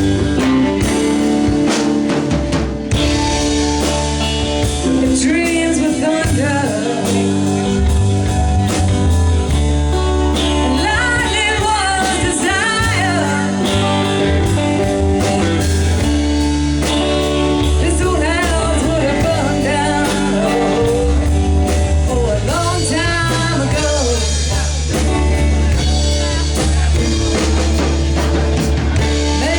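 Live band playing a blues-rock song, with a singer over drums, bass, guitar and keyboard.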